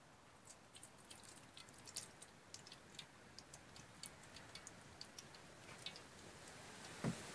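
Faint, irregular crackles and ticks from a wood cooking fire with oil heating in an iron kadai set on it, and a single louder knock near the end.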